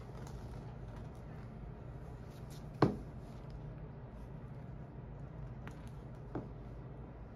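A low steady hum with two sharp snips of a hand tool at a gopher tortoise's back claws: one loud snip about three seconds in and a fainter one near the end, typical of nail clippers cutting a claw during a nail trim.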